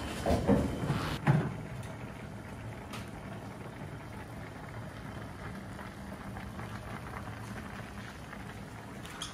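Diced chicken simmering in water in a frying pan, with a second pan boiling beside it on a gas hob: a steady bubbling hiss. During the first second or so a spatula stirs and scrapes in the pan, ending in a sharp clank.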